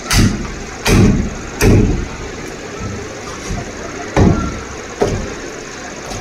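A large curved butcher's knife chopping a whole chicken on a wooden tree-stump block: five heavy chops, three in quick succession in the first two seconds, then two more about four and five seconds in.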